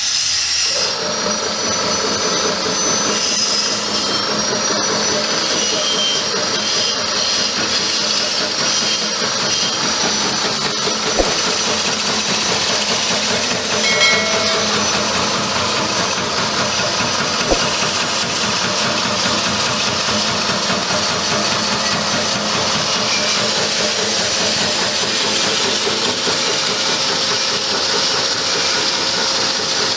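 Electric peanut chopping machine running steadily, its motor and belt-driven cutter grinding peanuts fed from the hopper into topping granules. A few sharp clicks stand out in the middle.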